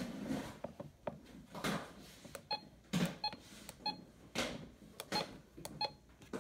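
Short electronic key beeps from a RadioShack 12-262 radio as its buttons are pressed, coming one after another about every half second to a second from about two and a half seconds in, between soft rustling noise.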